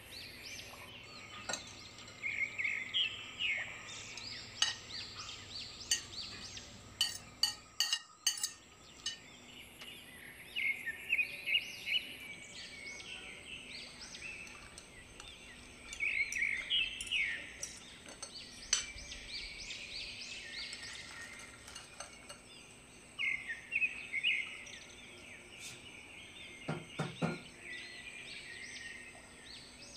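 A metal spoon clinking and scraping in a glass mixing bowl as salad is tossed, with repeated clusters of short, high chirps and scattered sharp clicks.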